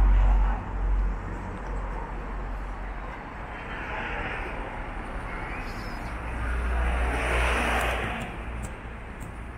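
Road traffic passing along a street. A car swells and fades about seven to eight seconds in, over a steady low rumble.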